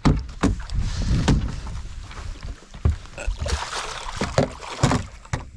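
Hooked musky splashing at the surface beside the boat and landing net, with scattered knocks and rattles against the boat.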